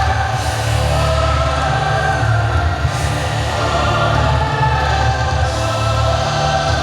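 Show soundtrack music: a choir singing long held notes over a deep, steady bass.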